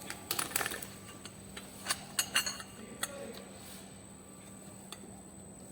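Metal hand tools clinking and tapping against metal: short clusters of sharp clinks, then a couple of single clicks, as a wrench and socket are worked on cylinder head bolts.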